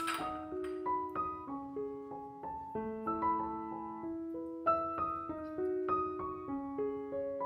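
Gentle background piano music: a melody of single notes over held lower notes, with a brief sharp click at the very start.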